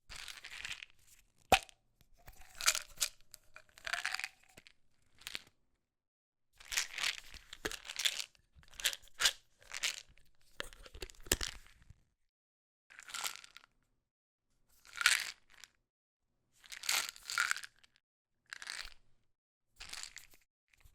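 Plastic pill bottle with pills inside, rattling in a series of separate short shakes with pauses between them, and a sharp click about a second and a half in.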